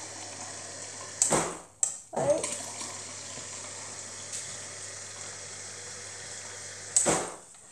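Water running from a refrigerator door dispenser into a glass, with the dispenser's steady low hum. The flow cuts out briefly just under two seconds in and resumes, with loud knocks around a second in, two seconds in, and as the flow stops about seven seconds in.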